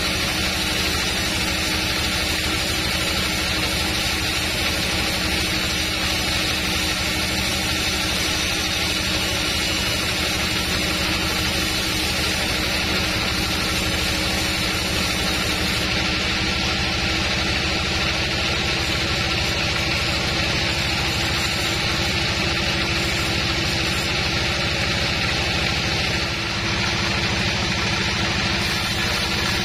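Sawmill band saw running steadily while its blade rips lengthwise through an old, hard teak log: a continuous machine drone with the noise of the cut over it.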